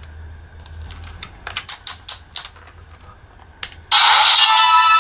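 Plastic clicks and clacks as the parts of a DX Super Sentai transformation toy are moved and snapped into place, then about four seconds in the toy's speaker starts a loud electronic sound effect made of several ringing tones.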